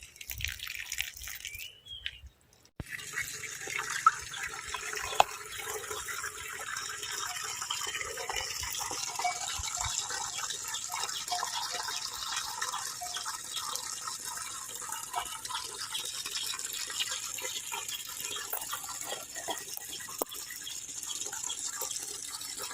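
Water splashing steadily onto loosened garden soil, starting abruptly about three seconds in: the bed being watered after the fermented manure fertiliser, to dilute it and spread it through the soil.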